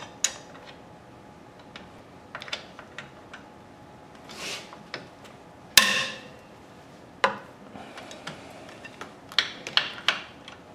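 Breaker bar and socket on a motorcycle's engine hanger bolt, clicking and clanking against the steel frame as the bolt is turned and the bar is repositioned. The clicks and knocks are scattered. The loudest is a ringing metal clank about six seconds in, and a quick run of clicks comes near the end.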